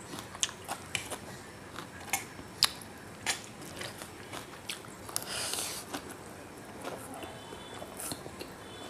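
Close-up eating sounds of chow mein noodles: chewing with many sharp wet mouth clicks, and a hissing slurp of noodles a little past halfway and another near the end.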